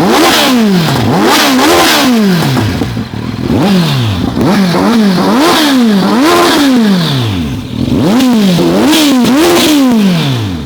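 Kawasaki Z900 inline-four engine revved through a newly fitted aftermarket exhaust, in three runs of quick throttle blips. Each run ends with the revs falling back to idle.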